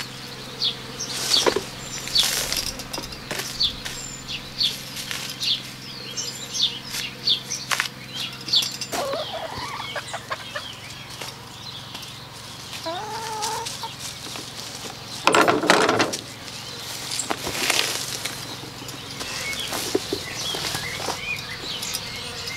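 Farmyard chickens clucking, with many short high chirps of small birds throughout. About fifteen seconds in comes a loud rasping noise, and a shorter one a couple of seconds later, as the hide is pulled off a hanging deer carcass.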